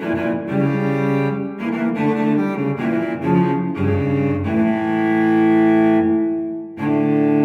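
Solo cello music: a bowed melody of changing notes, then one long held note for about two seconds, with a new note starting near the end.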